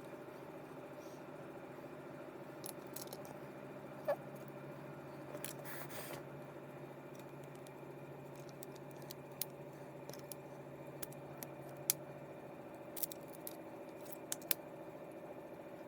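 Scattered light clicks and taps of small parts and tools being handled as a fishing reel is taken apart, with a brief scrape about five seconds in. A steady hum runs underneath.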